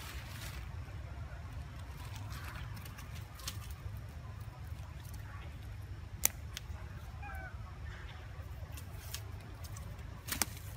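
Outdoor background: a steady low rumble, with a few sharp clicks, the loudest about six seconds in and another pair near the end, and faint short chirping calls near the middle.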